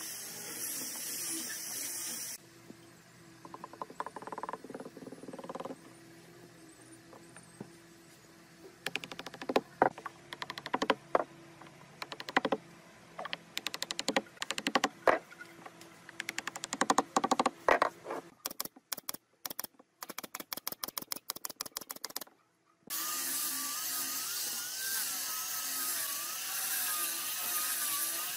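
A wooden mallet knocking wooden cylinders down into a glued table-top frame: a long series of sharp wooden knocks, some coming in quick runs. Near the end a handheld angle grinder with a sanding pad starts up and runs steadily against the wood.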